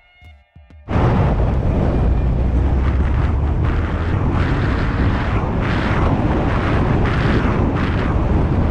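A car driving on a road: loud steady rumble of road and wind noise that cuts in suddenly about a second in.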